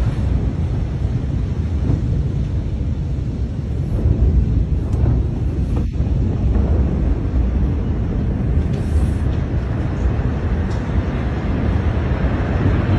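A loud, continuous low rumble with wind buffeting the phone's microphone, in the seconds after a huge explosion.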